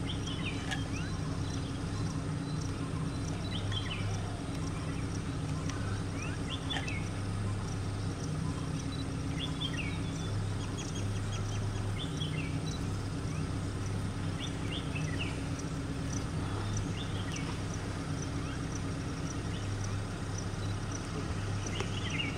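Birds calling in short chirps that sweep down in pitch, repeated every second or two, over a steady low mechanical hum.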